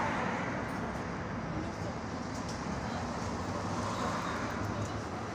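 Interior cabin noise of a 1989 Tatra T6B5SU tram: a steady low hum and rumble.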